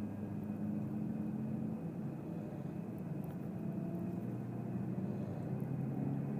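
A passenger snoring loudly over the steady low rumble of a bus running, heard from inside the bus. The snores come as drawn-out pitched breaths lasting a second or two.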